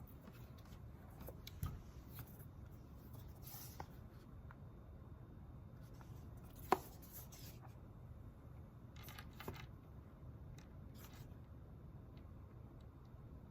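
Quiet room tone with scattered small study-desk sounds: light taps, a few short rustles, and one sharp click about halfway through.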